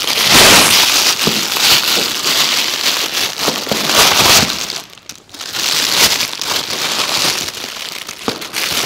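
Thin clear plastic bag crinkling and rustling as it is handled and pulled open, with a short lull about five seconds in.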